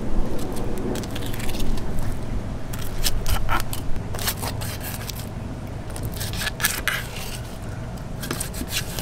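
Dexter 7-inch fillet knife slicing over a red snapper's rib cage, with a run of irregular small snaps and crackles as the blade crosses the ribs and pin bones, over a steady low hum.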